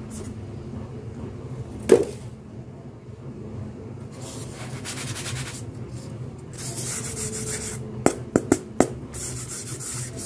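Hands handling and rubbing polystyrene foam cutouts: stretches of scratchy rubbing and scraping. There is a sharp tap about two seconds in and a quick run of four taps near the end.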